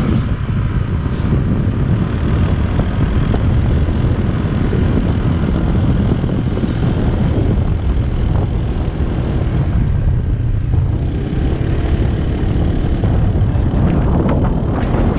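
Wind buffeting the camera microphone on a moving motor scooter, a loud, steady rumble with the scooter's small engine running underneath.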